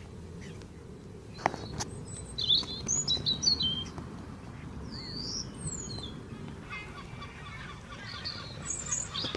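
Small birds chirping: a quick run of short, high calls about two seconds in, another near the middle and more near the end. There are a couple of sharp clicks early on and a rustle in the last few seconds.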